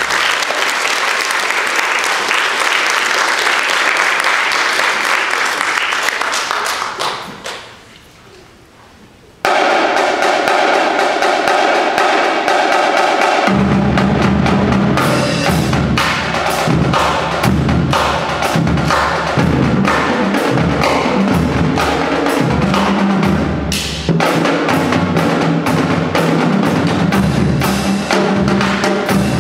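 Marching drumline playing snare drums, a set of tenor drums and pitched marching bass drums. A sustained roll dies away over the first seven seconds, then the drums come back in suddenly about nine seconds in, and the bass drums join about thirteen seconds in with a driving rhythmic pattern.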